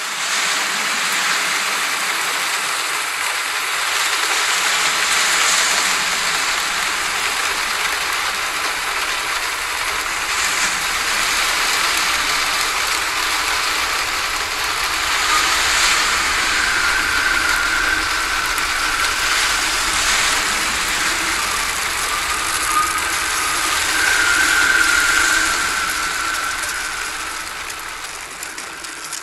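Hurricane-force wind blowing hard and steadily, swelling and easing in gusts and fading near the end. A high whistle rises out of it twice in the second half.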